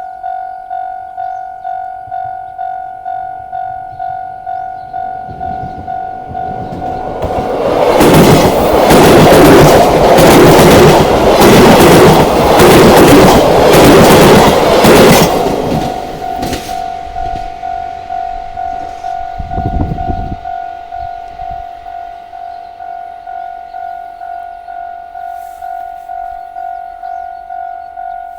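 Level-crossing warning bell ringing in a steady, rapid repeating pulse while a train passes at speed from about seven to sixteen seconds in, loud, with wheels clacking rhythmically over the rail joints. The bell keeps ringing after the train has gone.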